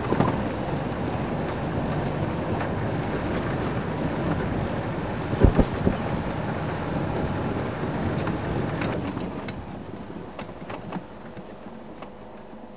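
Open safari vehicle driving fast on a dirt track: engine, road rumble and wind buffeting the microphone, with a sharp knock from a bump about five and a half seconds in. The noise falls away over the last few seconds as the vehicle slows.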